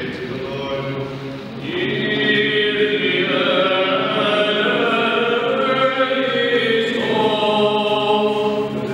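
Orthodox liturgical chant by men's voices, sung in long held notes. It grows louder just under two seconds in.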